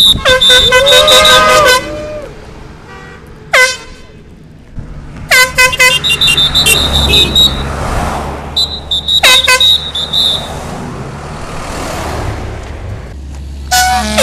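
Vehicle horns honking in repeated short toots and longer blasts, in several rounds, as passing drivers sound support for a strike picket line. Between the rounds, cars and trucks are heard going by.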